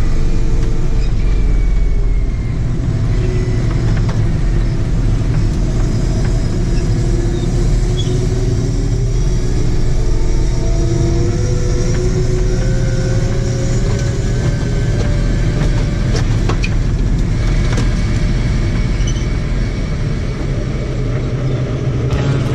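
Heavy harvest machinery running steadily: a constant low engine drone with faint whining tones that drift slowly up in pitch.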